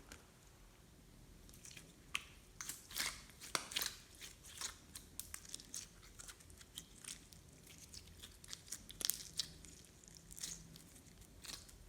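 Slime being worked by hand: faint, irregular small crackles and clicks, with a few louder sticky pops.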